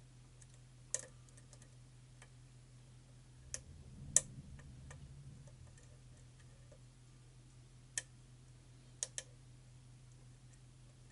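Scattered sharp metallic clicks of a lock pick working the pins of a pin-tumbler challenge lock, about six of them, the loudest about four seconds in, over a faint steady low hum.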